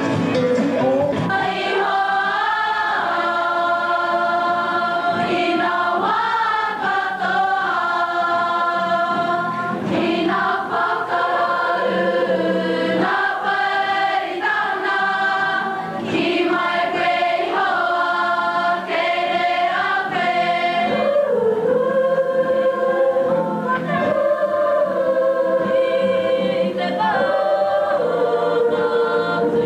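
A large group of schoolgirls singing together as a choir, in long held notes.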